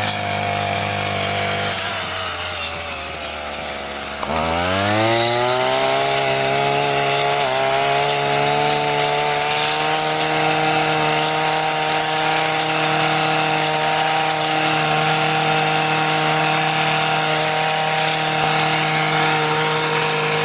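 Petrol brush cutter fitted with a cutting disc. Its engine falls back to a low idle about two seconds in, revs up sharply a little after four seconds, and then runs steadily at full throttle while cutting through tall grass and weeds.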